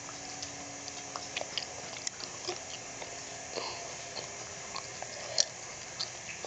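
A dollar bill being folded and creased by fingers: soft, scattered crinkles and small clicks of the paper, with a sharper crinkle about five seconds in.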